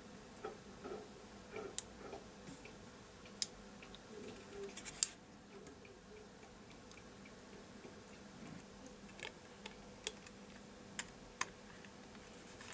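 A handful of short, sharp clicks and taps from the plastic and metal parts of a Sony DSC-W830 compact camera's lens unit and body being handled and fitted together by hand, with faint rustling between them.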